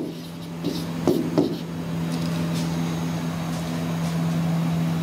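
Marker strokes on a whiteboard, a few short scratchy strokes in the first second and a half, over a steady low hum that continues throughout.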